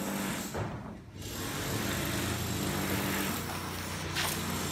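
Steady hum of workshop machinery running. It briefly drops out about a second in, then carries on at an even level.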